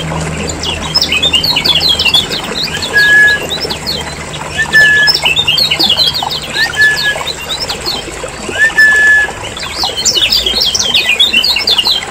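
Kecial kuning (Lombok yellow white-eyes) calling busily: bursts of rapid, high chattering twitters, with a short clear whistled note repeated every couple of seconds.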